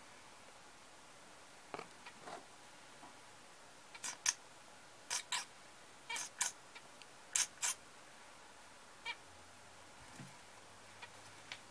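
Zebra finch calls: short, high chirps, mostly in quick pairs, several pairs in a row midway, with a few fainter single calls around them.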